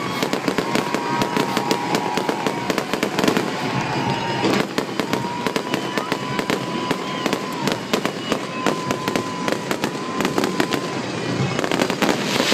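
Aerial fireworks crackling: golden crackle bursts give off a dense, rapid stream of sharp pops and snaps. Under them a bagpipe melody plays.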